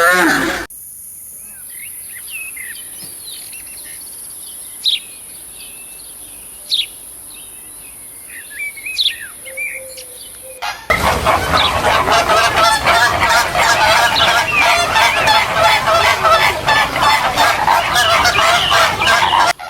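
Scattered short bird chirps over a low background. After an abrupt cut about eleven seconds in, a loud, dense chorus of many overlapping calls from a crowded flock of fowl.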